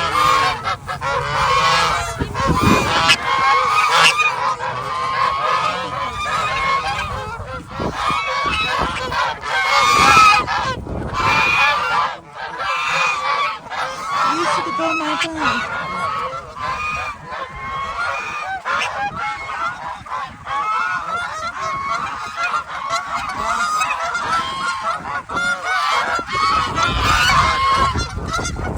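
A flock of geese honking continuously, many calls overlapping one another.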